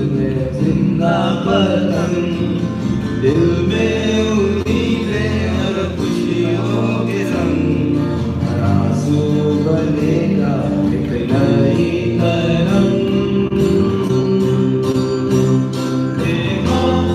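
Live music from a small acoustic band: singing over acoustic guitar and electric bass guitar, continuous and steady in level.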